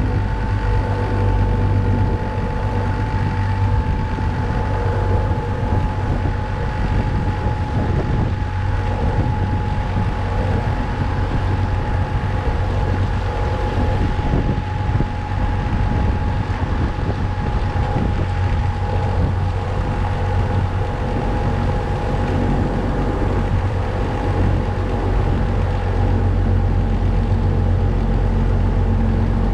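Motorboat engine running steadily at speed: a deep, constant rumble with a high whine that drifts slightly lower, over a rushing wash of water and wind.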